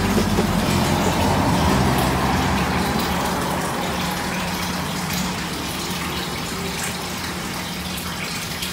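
Steady rushing noise over a low hum, slowly growing quieter.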